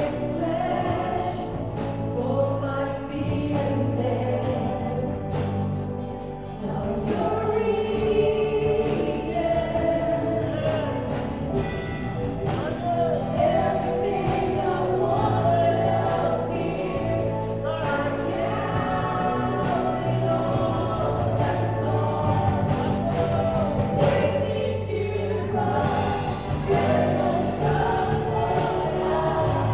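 A live worship band playing a contemporary worship song: several men and women singing together over drums, electric guitar and keyboards, with a steady drum beat.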